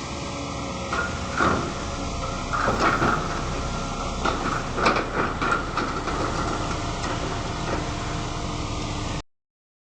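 Excavator's diesel engine running steadily, with scattered metallic clanks and squeaks from the working machine. The sound cuts off suddenly near the end.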